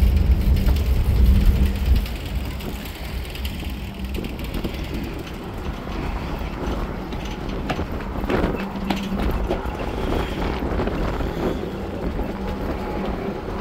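Steady low rumble and hum of the ferry M/V Walla Walla under way, heard on its open upper deck with wind noise. The rumble is heaviest for the first two seconds, then settles lower. A brief rush of noise comes about eight seconds in.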